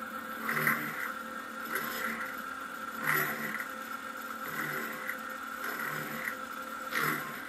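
Electric bench drill press running with a steady motor whine while its bit drills through a truck clutch plate's friction lining, the cutting noise swelling in short repeated bursts as the bit is fed in.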